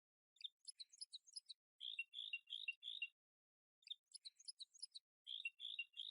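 Bird chirping: a phrase of quick high twitters followed by four fuller chirps, heard twice.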